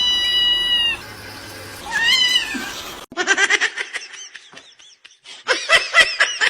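Domestic cat meowing: a long, steady, high meow, then a shorter one that rises and falls. About three seconds in, the sound cuts to a rapid run of short pulsed sounds, several a second.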